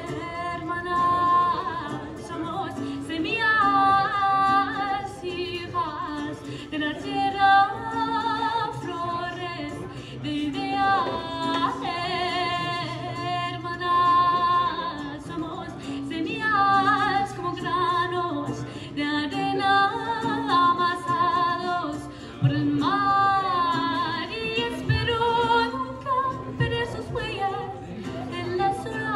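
Woman singing live into a microphone, amplified through a PA speaker, holding long notes with vibrato over her own accompaniment on a ukulele.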